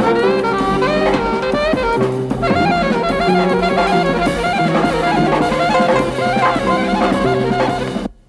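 Jazz band music with saxophone, brass and drum kit, ending abruptly near the end.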